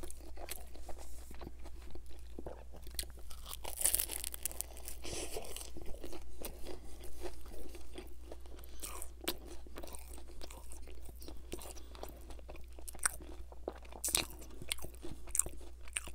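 Close-miked chewing of a pizza sandwich stuffed with chicken Caesar salad and croutons: irregular crunching and wet mouth clicks throughout.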